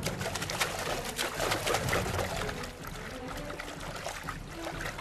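Water splashing as men dive into a river from small wooden boats: a busy spell of splashes for the first two seconds or so, then softer trickling water.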